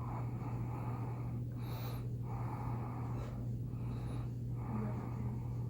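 A person breathing audibly through the nose in slow, regular breaths, about a second each, over a steady low electrical hum.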